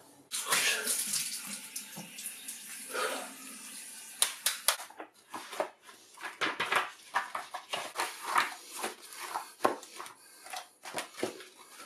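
Running water, a steady hiss for the first few seconds, then irregular splashing, clicks and rustles for the rest.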